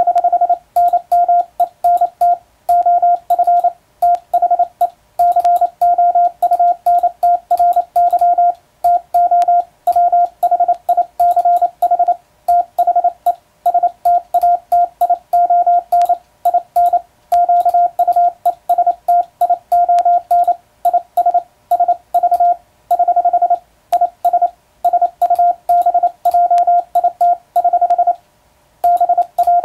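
Morse code (international, Latin-alphabet characters) sent with an electronic keyer: a steady beep of about 700 Hz keyed on and off in fast, evenly timed dots and dashes, with short pauses between letters and longer ones between words.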